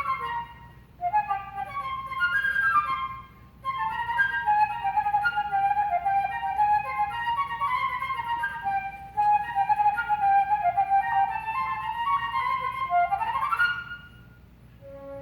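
Solo flute playing fast runs of short notes, in phrases with brief breaks about one and three and a half seconds in. Near the end a quick rising run closes the passage, and the flute stops shortly before the end.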